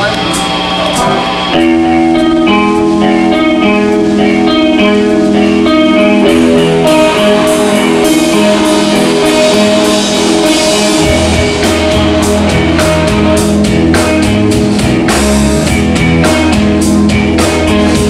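Live rock band playing, with electric guitars over a drum kit; the band gets louder about a second and a half in. Low bass notes come in about eleven seconds in.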